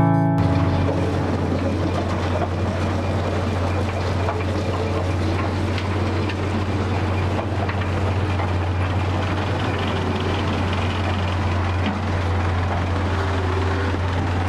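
Sawmill log-deck machinery running steadily, a constant low hum with an even mechanical rattle and hiss over it.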